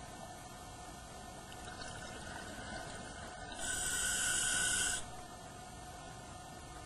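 Scuba regulator hissing through one breath for about a second and a half midway, heard underwater through the camera housing, over a steady hum.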